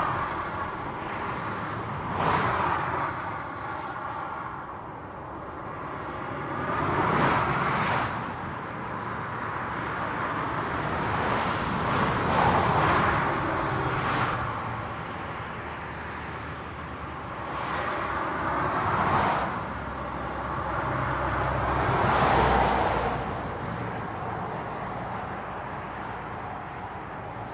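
Highway traffic: a continuous rush of tyre and engine noise, with vehicles passing every few seconds, each swelling loud and then fading away.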